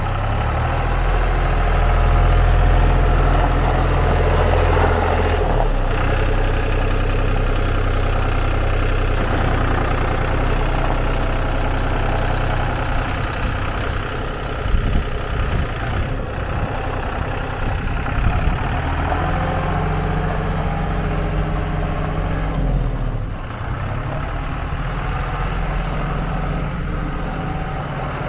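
Ford New Holland TN65 tractor's diesel engine running as the tractor drives over gravel, its pitch shifting a few times, with a few brief knocks about halfway through.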